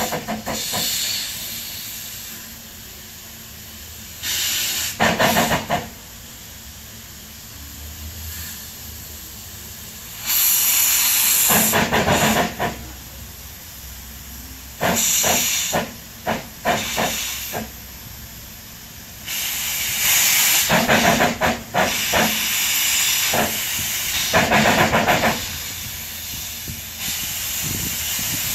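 Single Fairlie narrow-gauge steam locomotive straining to start a heavy slate train. Steam hisses in about five loud bursts, some broken into quick runs of sharp chuffs, with quieter stretches between.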